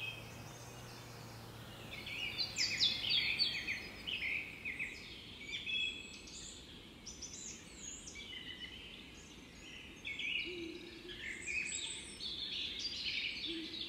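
Woodland birdsong: several birds singing in quick, high chirping phrases, starting about two seconds in and going on in overlapping runs.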